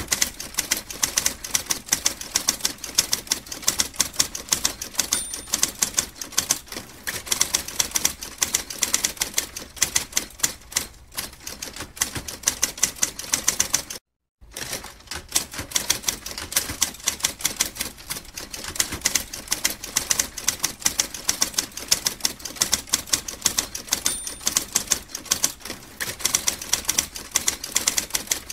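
Manual typewriter keys clacking in a fast, continuous run of strikes, several a second, cut off for about half a second halfway through.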